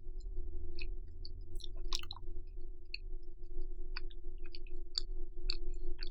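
Close-miked chewing of bacon-wrapped rice cakes: irregular soft wet mouth clicks and smacks, over a steady low hum.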